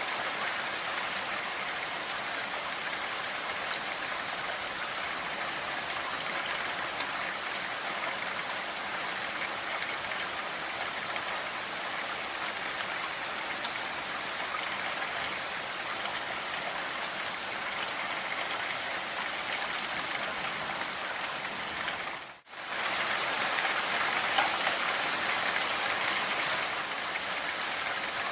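Steady rainfall, an even hiss of many drops. About twenty-two seconds in it drops out for a split second and comes back slightly louder.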